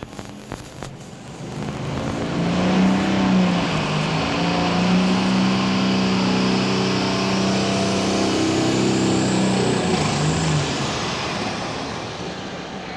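Pro Stock pulling tractor's diesel engine at full throttle under heavy load during a pull. It builds up about a second and a half in, holds loud with the engine note wavering in pitch, then backs off and fades about ten seconds in.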